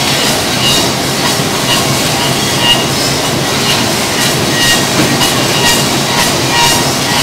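Woodworking machines in a wooden-hanger workshop running together: a loud, steady mechanical din with short high squeals and light clicks recurring every second or so.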